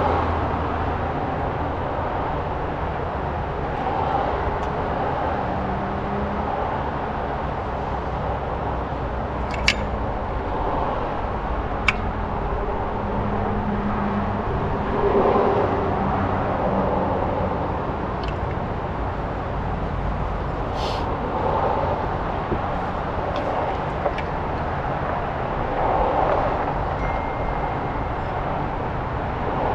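Steady low rumble and hum of outdoor background noise, with a few brief sharp clicks about ten, twelve and twenty-one seconds in.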